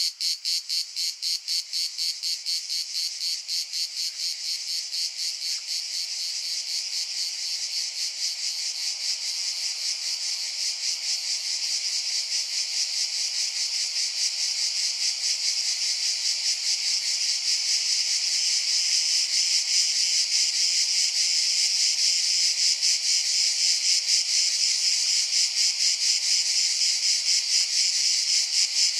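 Insects chirring in a fast, even, high-pitched pulse. The pulses blur into a steadier, slightly louder chirring over the second half.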